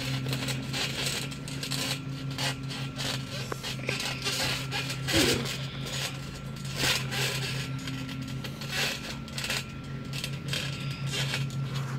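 Bodies scuffing and bumping on a trampoline mat during grappling: irregular rustles and soft thumps over a steady low hum, with a brief voice sound about five seconds in.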